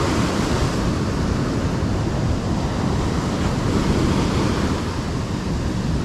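Ocean surf breaking and washing up a sandy beach: a steady rushing wash of water.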